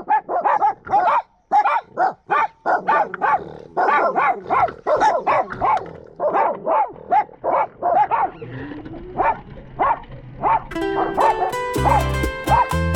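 Dog barking rapidly and repeatedly, about three barks a second. Music with a steady bass beat comes in near the end.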